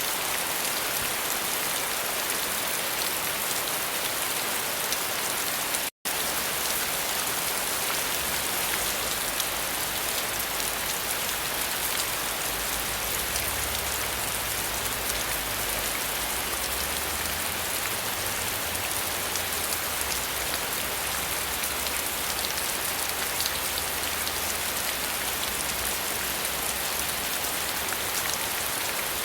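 Steady rain falling on surfaces: a dense, even hiss of drops. About six seconds in it cuts out for a split second and resumes.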